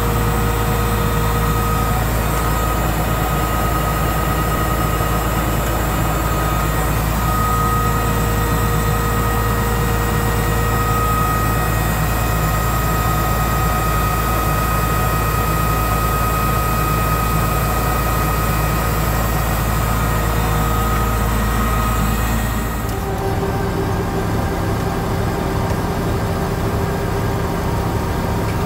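Drill rig engine running steadily while a Reed wheel-type pipe cutter works on 6-inch steel well casing, with a thin steady squeal that comes and goes. The cutter wheels are tracking into a spiral and scoring threads instead of cutting through. About 23 seconds in, the deep drone and the squeal stop and a lighter steady running sound carries on.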